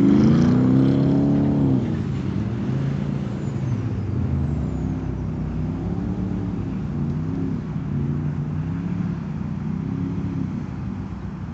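Porsche Cayenne's engine revving up and down as the SUV drifts sideways on snow. It is loudest in the first two seconds, then gives a series of shorter rises and falls, about one a second.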